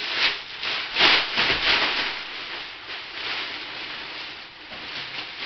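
Rustling and rubbing of kitchen things being handled and packed into boxes, loudest in a few swells in the first two seconds, then softer.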